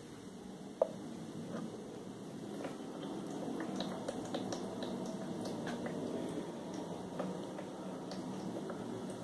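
Home-built OpenTempescope weather box making its cloudy weather: a steady hum from its mist maker and fan, with scattered small wet ticks and drips of water inside the acrylic tank, most of them in the middle of the stretch.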